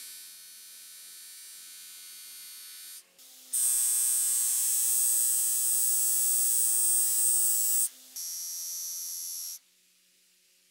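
DeWalt bench grinder running, with a small steel gun part pressed against its spinning buffing wheel: a steady, high buzzing whine. It comes in three stretches with short breaks between them, is loudest in the middle stretch, and stops near the end.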